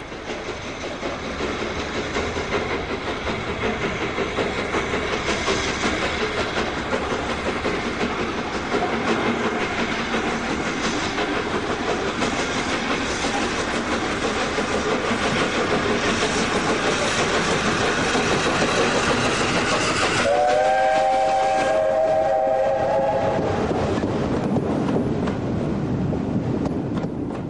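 Three-cylinder BR Pacific No. 71000 Duke of Gloucester working a train at speed, its running noise growing louder over the first few seconds and then holding. About twenty seconds in, a steam whistle sounds for roughly three seconds.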